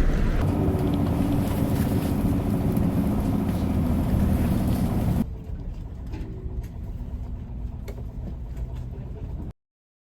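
Steady low rumble of a running engine, loud, dropping abruptly about halfway through to a quieter steady hum with a few light clicks, then cutting off to silence just before the end.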